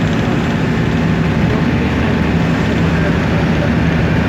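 Steady engine and road noise of a moving vehicle heard from inside its cabin, a low, even drone.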